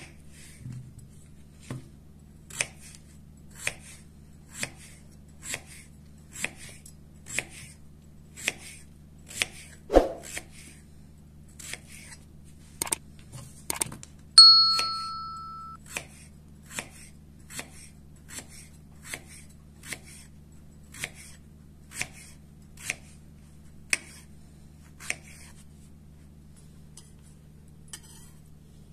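Kitchen knife slicing a peeled raw potato on a wooden cutting board: a steady series of sharp cuts, about one a second, each ending as the blade meets the board, with one heavier knock about ten seconds in. A single bright ding rings out about halfway through and fades over about a second.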